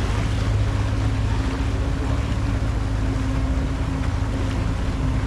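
A small motorboat's engine running at a steady cruising speed, a constant low hum under the rush of water along the hull and wind.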